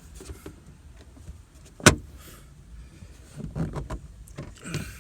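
Plastic interior trim being fitted and handled: one sharp click about two seconds in, with quieter rustling and knocks near the end.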